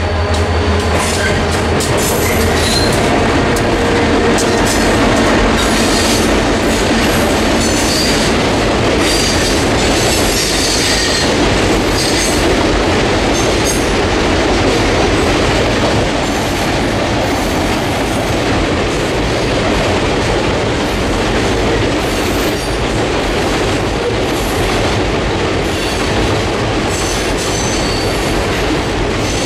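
Loaded stone hopper cars of a freight train rolling across a steel trestle: a loud, steady rumble and rattle of wheels on the rails and the bridge, with brief high wheel squeals now and then. A low engine hum fades out in the first couple of seconds.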